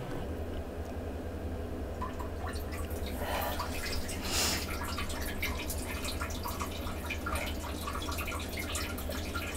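Light water dripping and trickling in a small tiled bathroom, irregular small drips over a steady low hum.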